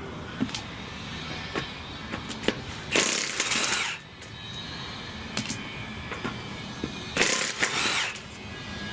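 Impact wrench run in two short bursts of about a second each, with small metallic clinks between them.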